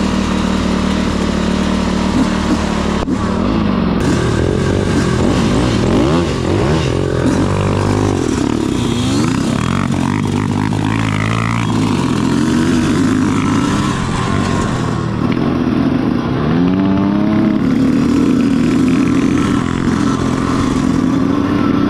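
Several dirt bike engines running together, revving up and down with their pitch rising and falling as they accelerate and ease off.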